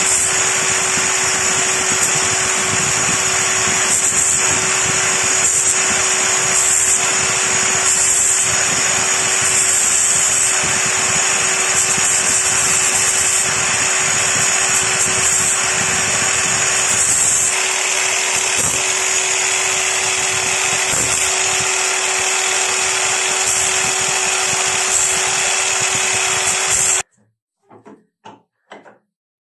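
Angle grinder running steadily against the steel of an axe head clamped in a vise, a constant whine under a harsh grinding noise. It cuts off suddenly near the end, followed by a few light knocks of handling at the vise.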